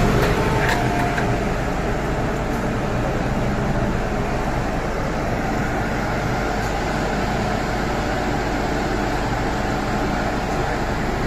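Steady hum of an MTR M-train's air-conditioning and ventilation while the train stands at a station platform, with the platform's background noise coming in through the open doors.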